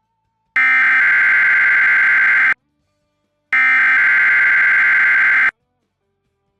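NOAA Weather Radio SAME digital header: two harsh, buzzy data bursts of about two seconds each, a second apart, repeating the coded header that opens a Required Weekly Test alert.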